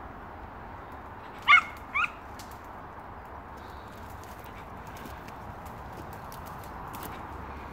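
A dog gives two short, high yelps about a second and a half in, half a second apart, giving tongue on a rabbit that has just bolted. Faint snaps of twigs in the undergrowth.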